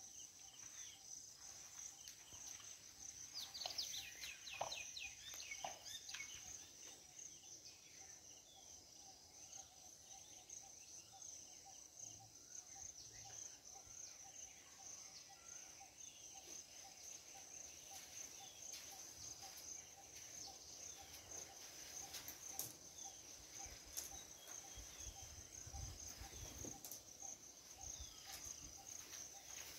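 Faint, steady high-pitched insect chorus of crickets or cicadas in scrub, with a second lower insect drone under it. A short run of bird chirps comes a few seconds in, and a few dull low thumps come near the end.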